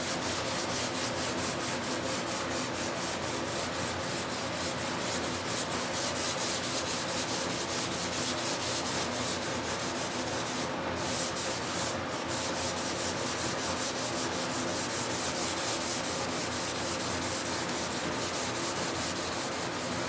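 400-grit sandpaper on a sanding block rubbed rapidly back and forth over a primed model stabilizer, a steady, even rasping of many quick strokes, flatting the primer off the tops of the panel-line tape. It breaks off briefly twice about halfway through.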